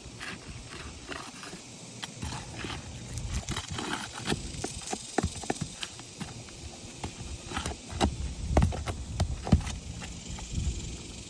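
Work on an asphalt shingle roof: irregular taps, scrapes and crackles, with a few sharper knocks in the last few seconds.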